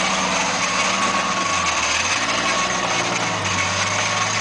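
Lifted off-road SUV's engine running steadily at low revs as it crawls over rocky ground, its pitch shifting slightly now and then.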